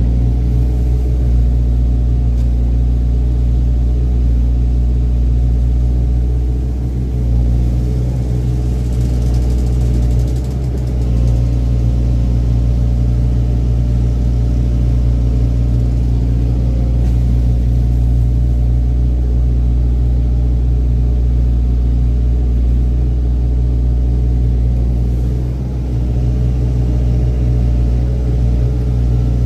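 Excavator's diesel engine running steadily with a deep, even hum, dipping slightly in loudness a few times.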